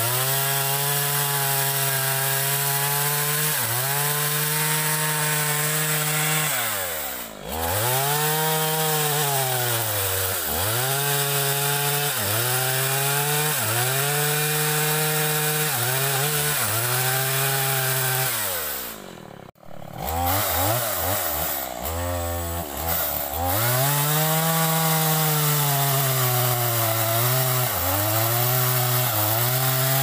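Two-stroke chainsaw running at high revs while cutting into the trunk of a large tree, its pitch sagging and recovering over and over as the chain loads in the wood. Twice it falls to low revs, about 7 seconds in and again around 20 seconds, where it idles for a couple of seconds before revving back up.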